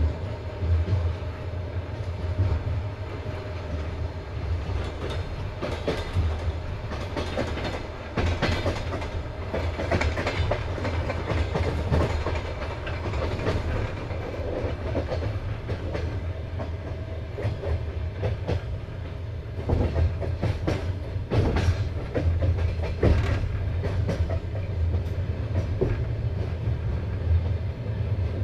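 Passenger train carriage running at speed over the rails: a steady low rumble of the wheels with bunches of sharp clickety-clack knocks over rail joints, heard through the compartment window.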